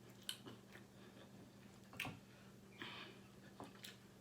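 Near silence with a few faint, sparse mouth clicks and a brief soft crunch from chewing chicken.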